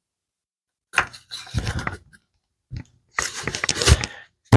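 Crunchy scraping and handling noises of wooden pieces being fitted together on a workbench. They come in two bursts of about a second each, with a short knock between them.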